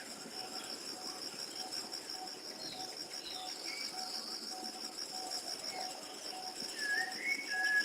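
Outdoor birdsong recording: a steady high pulsing trill runs under scattered faint bird chirps, and whistled bird calls with sliding pitch grow louder near the end.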